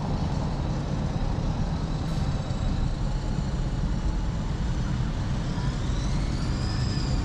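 Street traffic: vehicles passing with a steady low rumble. A faint high whine rises and falls near the end.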